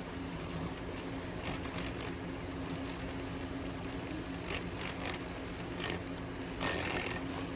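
A steady low hum under a series of short clicks and scrapes of handling, the loudest a brief rasp near the end.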